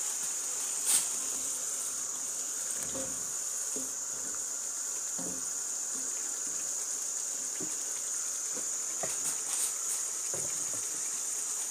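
Tripe stew simmering in a pan, a steady high-pitched hiss with scattered soft bubbling pops and the odd faint knock of a wooden spoon.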